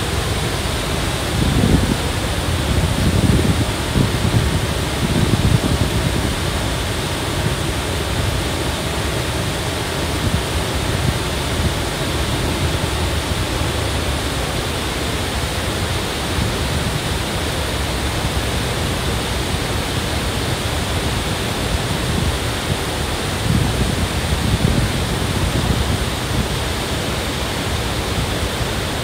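Steady rushing of a waterfall pouring into a rocky pool, with the shallow creek below it running over stones. Short surges of low rumble come a few seconds in and again near the end.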